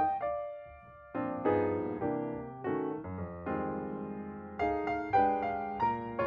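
Background piano music: slow chords, each struck and fading, with a short lull about a second in.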